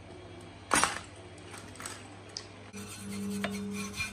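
A loud metallic clank of rusty bench drill parts being handled and set down, followed by a few lighter clinks. About three seconds in, a hand wire brush starts scrubbing rust off the drill's steel base.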